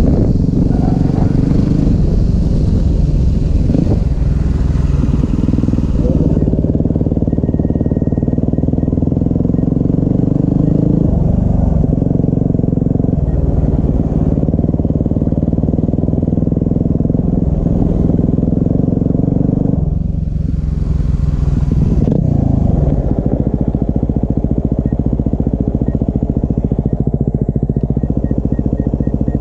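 Dual-sport motorcycle engine running on a gravel road, its pitch shifting several times as the rider changes gear and throttle. About two-thirds of the way through the revs fall away, and it runs on more slowly and evenly to the end, with wind hiss on the microphone in the first few seconds.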